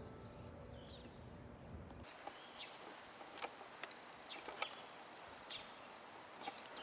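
Faint outdoor ambience with small birds chirping now and then in short, sharp high calls. The last echo of the loudspeaker chime dies away in the first second.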